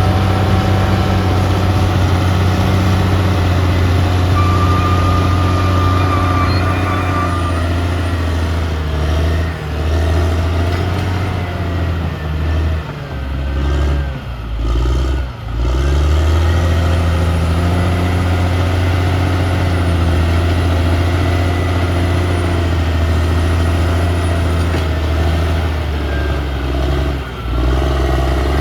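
Caterpillar D6R XL bulldozer's diesel engine running steadily under load, with a faint high whine above it. The engine note dips and wavers several times around the middle and once near the end.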